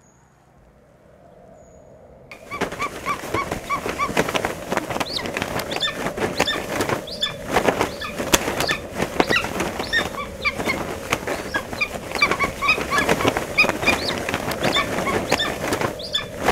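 A large flock of birds calling over one another: many short, repeated call notes mixed with sharp clicks. It starts suddenly about two seconds in, after a faint quiet opening.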